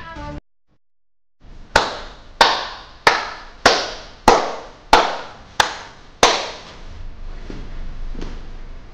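Dance-track music with a hand-clap beat: after about a second of silence, eight sharp claps evenly spaced just over half a second apart, then a steadier, quieter backing.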